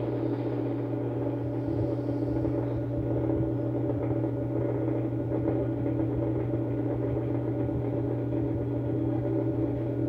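Electric pedestal fan running at its lowest speed and oscillating, fed at reduced voltage through a single series test lamp: a steady, even low hum from the motor. Its running on one lamp at minimum speed is taken as the sign that the motor's capacitor still holds its capacitance.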